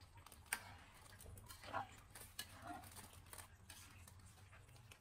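Faint, scattered clicks and scrapes of a wooden spatula against an aluminium wok as a simmering soup is stirred, over a low steady hum.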